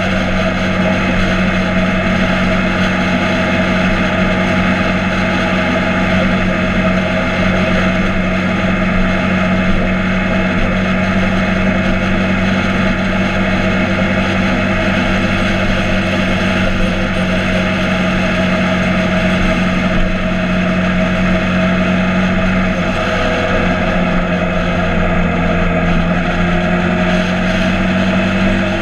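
Motorcycle engine running at a steady speed, its hum holding one pitch, over an even hiss of wind and road noise.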